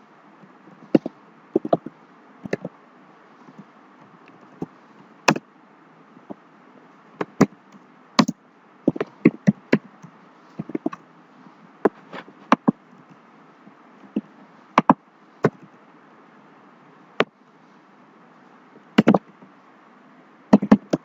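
Computer keyboard being typed on: irregular keystroke clicks, some in quick runs and some single, with pauses between.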